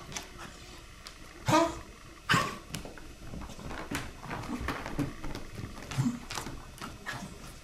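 A dog coughing in sudden sharp bursts, the two loudest about one and a half and two and a half seconds in, with smaller hacking coughs later.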